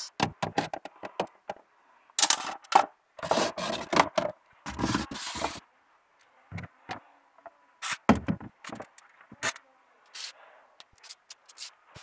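Handling noises: objects being shifted and the phone rubbing and scraping against a wooden shelf, in irregular bursts with small clicks and knocks between them.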